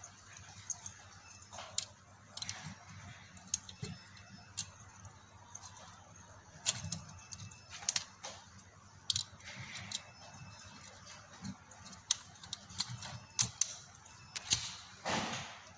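Irregular clicks and light taps as an aluminium hot-swap drive rack and its tray are handled, with a short scraping sound near the end.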